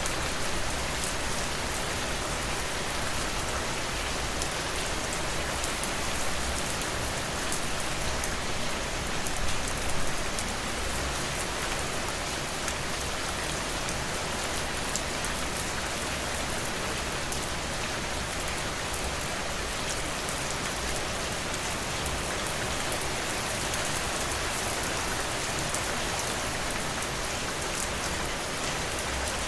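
Steady rain falling on a surface, a dense even patter of many drops with a brief slight swell about a third of the way in.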